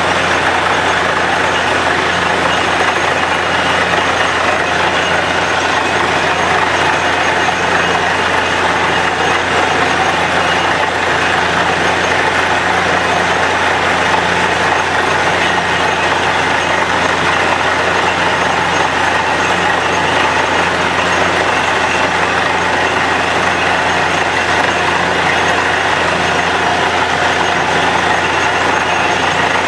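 Truck-mounted borewell drilling rig running while drilling, a loud steady machine drone with a faint regular pulse about once a second, as muddy water and cuttings are flushed out of the borehole.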